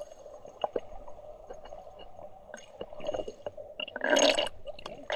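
Water splashing and dripping in a waterfall pool, with a louder splash about four seconds in.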